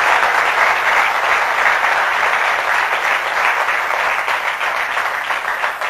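Audience applauding: dense, steady clapping that holds throughout and thins slightly near the end.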